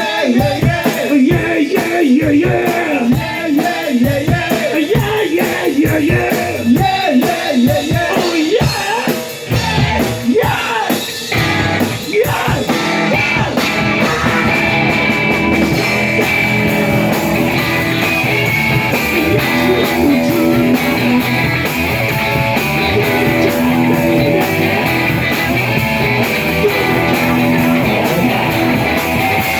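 Live rock and roll band playing loud, with electric guitar and drums. A singing voice rides over the band for roughly the first third, then the band settles into steady held chords.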